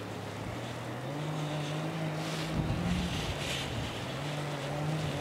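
A distant engine droning with a steady low hum that steps up in pitch about a second in and then holds, over a hiss of wind that swells now and then.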